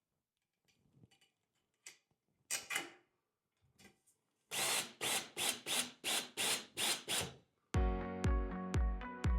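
A cordless drill driving screws in short bursts, about nine pulses at roughly three a second, after a few light handling clicks; background music with a steady beat comes in near the end.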